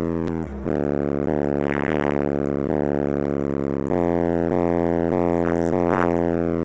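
Bass-heavy hip-hop track played loud through a 10-inch subwoofer inside a car: deep sustained bass notes that step to a new pitch every second or so.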